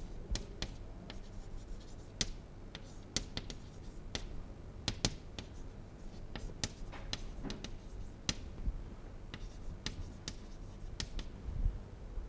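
Chalk writing on a chalkboard: irregular sharp taps and short scratching strokes as words are written.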